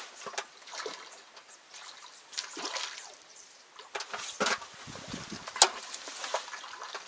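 Water trickling and dripping, with small irregular splashes and one sharper splash a little past halfway.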